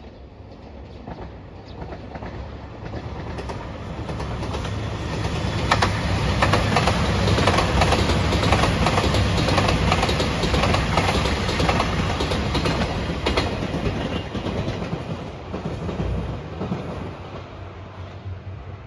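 JR Shikoku 2700 series diesel limited express train passing close by, its engines running and its wheels clicking over rail joints. The sound builds over the first few seconds, is loudest with a run of clicks in the middle, and fades toward the end.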